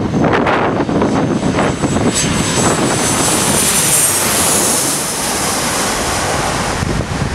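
Boeing 737 jet airliner on final approach passing low overhead, its engines running with a loud roar and a high whine that slides down in pitch as it goes over. Wind buffets the microphone.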